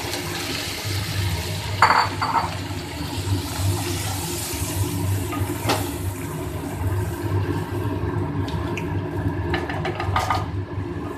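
Stock being poured into a hot pan of fried chickpeas, peas and potatoes, then the thin gravy simmering with a steady hiss. A few short clicks come through it.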